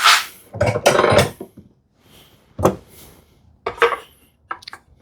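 Bevel-edge chisel paring the side wall of a mortise in wood by hand: about five short scraping cuts, the longest lasting about a second near the start.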